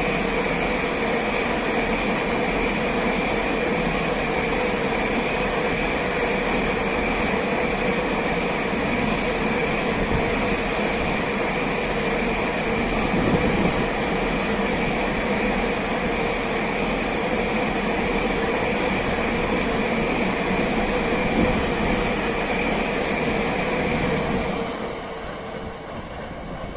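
Long intermodal freight train's wagons rolling past at speed: steady loud rolling noise with a constant whine over it. The noise and whine fall away about 25 seconds in as the end of the train passes and recedes.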